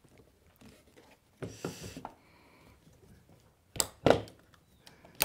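A plastic fishing rod holder being fitted into its mount base on an inflatable boat's tube: a short rustle of handling, then two sharp plastic clicks about four seconds in as it seats, and another click near the end.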